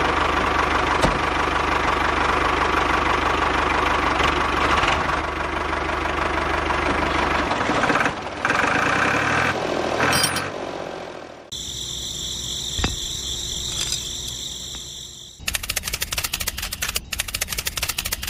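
Tractor engine running steadily with a low knocking pulse, its pitch shifting and the sound dying away about ten to eleven seconds in. A different steady high-pitched sound follows, then, from about fifteen seconds, a rapid run of clicks.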